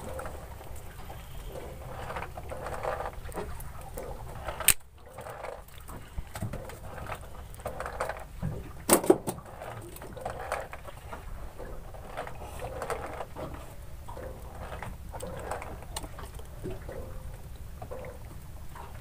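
Water lapping and sloshing against the hull of a small wooden fishing boat, over a low steady rumble, with a sharp knock about five seconds in and a double knock about nine seconds in.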